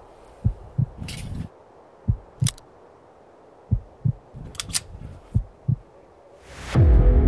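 Heartbeat sound effect: pairs of low thumps about every second and a half, with a few sharp metallic clicks from a pistol being handled and its slide worked. Near the end a rising whoosh swells into loud music.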